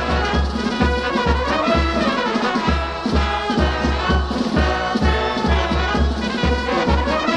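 Brass band music over a steady low beat, about two beats a second.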